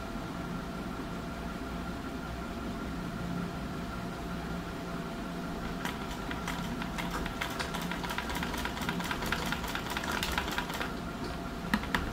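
Old black domestic sewing machine stitching down pleats in fabric: a rapid run of needle clicks starts about halfway through and lasts about five seconds, with two separate clicks near the end. A steady hum runs underneath.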